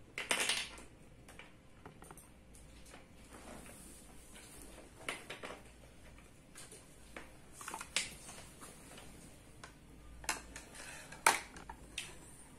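Large plastic building bricks clicking and knocking as they are handled, pressed together and set down. The clicks are scattered, with a short clatter right at the start and the sharpest click about a second before the end.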